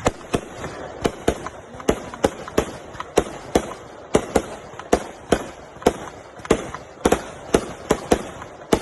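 Fireworks going off in a rapid barrage: sharp bangs at irregular spacing, about three a second, over a continuous hiss.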